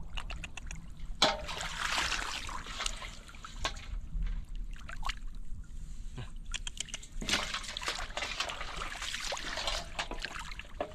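Water splashing and sloshing in irregular bursts, with scattered sharp clicks and knocks between them.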